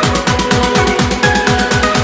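Electronic dance music with a fast, steady kick-drum beat under held synth notes.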